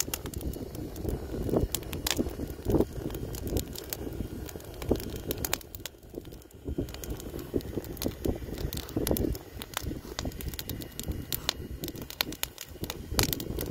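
Wood fire crackling, with frequent irregular sharp pops from the burning logs, over a low rumble of wind on the microphone.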